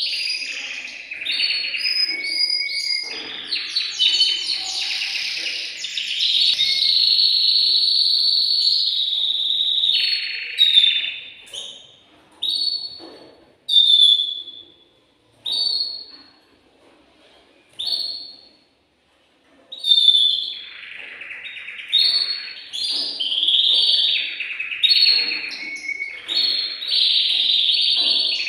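Male domestic canary singing: long runs of rapid trills and rolls, breaking about ten seconds in into short separate phrases with pauses, then going back into full continuous song about twenty seconds in.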